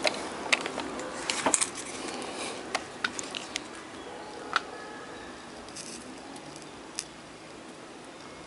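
Tools being handled at a soldering bench: small sharp clicks and clinks, several close together in the first few seconds, then single ones about four and a half and seven seconds in, over a steady hiss.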